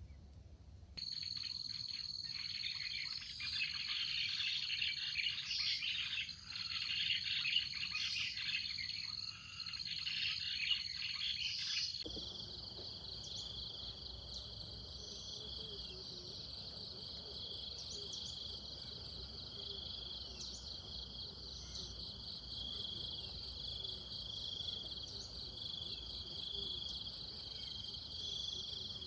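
Birds chirping busily over a steady high-pitched insect drone; about twelve seconds in the sound cuts to a steady, pulsing insect chorus with only occasional chirps.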